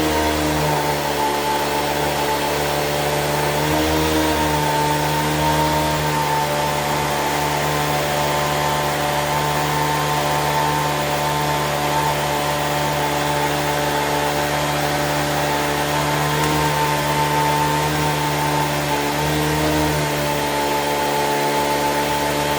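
Electric motor whining steadily, its pitch dipping and recovering briefly a few times.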